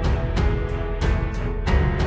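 Background music with a steady beat of about three strikes a second over deep bass.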